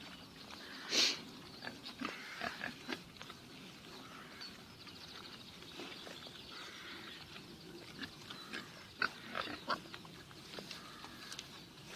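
Pigs in a pen, a string of short, scattered calls over a faint steady background; the loudest comes about a second in, and several more follow close together near the end.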